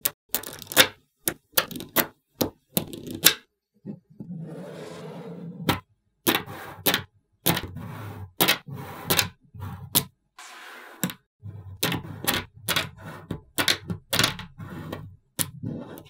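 Small neodymium magnetic balls clicking together in quick, irregular sharp snaps as strips of them are folded and joined into rings, with a couple of longer, softer rattling stretches between.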